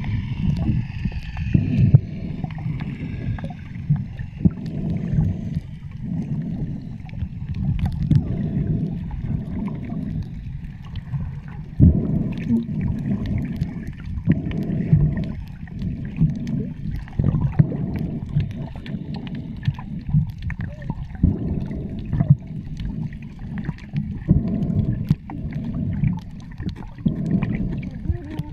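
Muffled underwater noise from a submerged camera: water rushing and sloshing in low surges every second or two as it moves through the water, with small clicks and bubble ticks.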